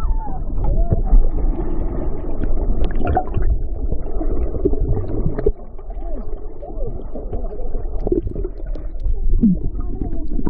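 Muffled underwater rumble of moving seawater and bubbles, recorded with the phone's microphone submerged, with short warbling gurgles scattered through it.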